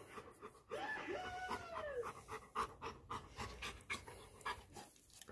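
Golden retriever panting quickly, about three breaths a second, breaking about a second in into a short whining moan that rises and falls in pitch before the panting resumes.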